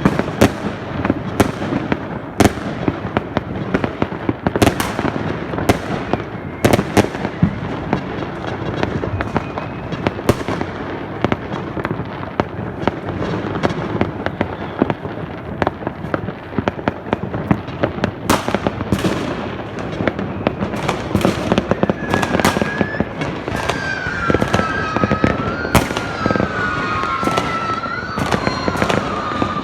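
New Year's Eve fireworks and firecrackers going off: a dense, irregular barrage of sharp bangs over continuous crackling, with a wavering whistle rising and falling over the last several seconds.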